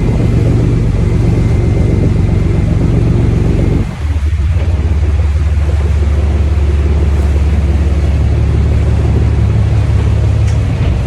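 Boat engine running with a steady, loud low drone, heard from aboard. About four seconds in the sound briefly dips and settles into a slightly different, deeper drone.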